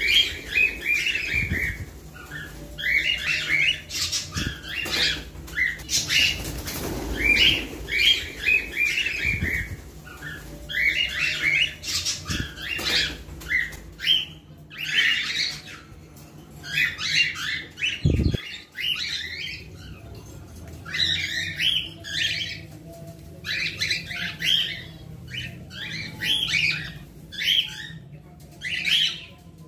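Cockatiels chirping and calling in repeated short bursts, in an aviary. A brief low thump comes about 18 seconds in.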